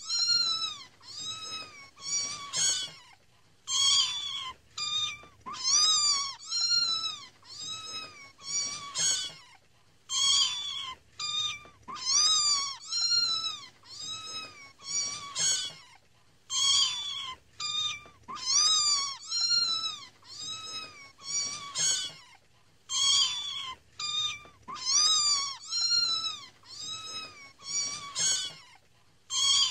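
Kittens mewing over and over: high-pitched meows, each rising then falling in pitch, about one or two a second.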